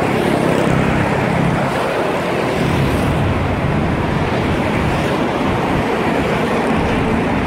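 Steady, loud road-traffic and engine rumble with an even hiss, with no distinct knocks or clanks.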